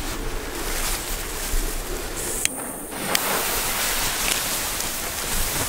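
Steady rushing noise of wind on the microphone and grass rustling as someone moves through tall grass, with one short click about two and a half seconds in.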